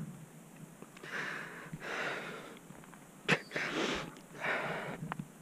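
A hiker breathing heavily close to the microphone, several drawn breaths in and out, with one sharp click about three seconds in. He is close to tears.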